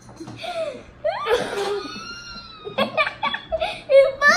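Children laughing: giggles and a burst of laughter about a second in, rising to a loud, high-pitched laugh near the end.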